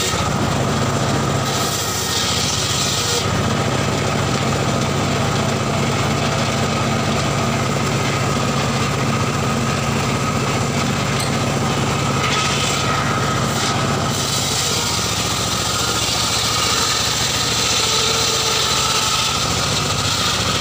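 Engine of a homemade circular saw bench running steadily, driving the spinning saw blade.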